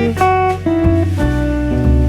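Background music: plucked guitar playing a melody of single notes over a steady bass line.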